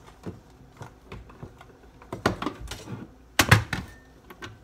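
Scattered clicks and knocks of things being handled on a kitchen counter, with a few in quick succession about two seconds in and a louder thud about three and a half seconds in.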